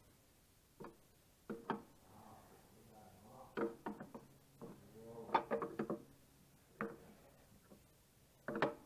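Irregular knocks and clinks of tools and metal wheel hardware being handled while dual wheels are fitted to a tractor, some with a brief ring. They come busiest around the middle.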